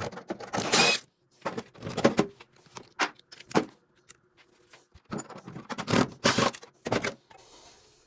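Metal parts of a gas tankless water heater clattering and scraping as its gas valve assembly is worked loose and pulled out: a run of irregular knocks, rattles and scrapes with short gaps between them.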